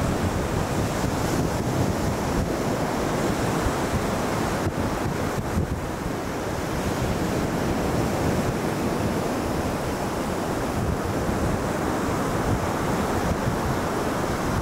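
Surf washing steadily onto a sandy beach, with wind rumbling on the microphone.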